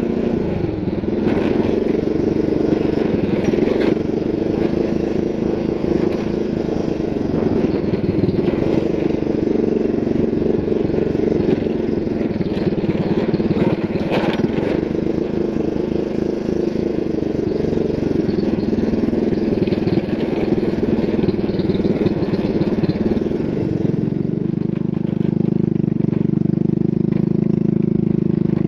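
Motorcycle engine running at low road speed on a rough dirt track, its note wavering up and down with the throttle, with a few knocks as it rides over bumps. Near the end the engine settles to a lower, steadier note as the bike eases off.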